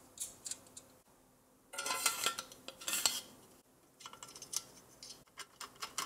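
Small metal screws and a screwdriver clicking and rattling against a sheet-metal hard-drive cage, in two spells of light metallic clinks, some briefly ringing.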